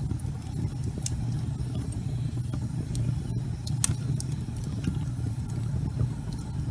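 Wood fire burning in a fireplace: scattered sharp crackles and pops from the burning logs over a steady low rumble of the flames, with the loudest pop about four seconds in.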